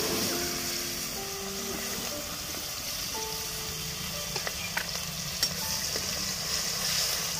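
Sliced onions frying in hot oil in a kadhai, a steady sizzle that is loudest just after they go in. A metal ladle stirring them gives a few sharp clicks against the pan about four to five seconds in.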